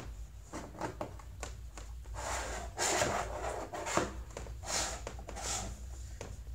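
Plastic LEGO bricks being handled as a roof section is worked onto a built model: small clicks throughout, with a few louder scraping or rubbing sounds in the middle.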